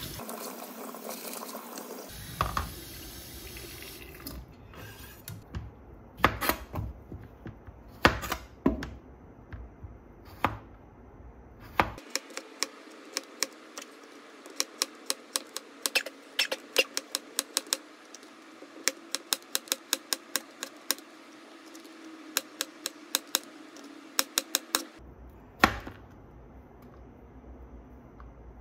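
Kitchen knife slicing a cucumber on a plastic cutting board: a long run of sharp taps, about three a second, with a few louder knocks. Water runs in the sink briefly at the start.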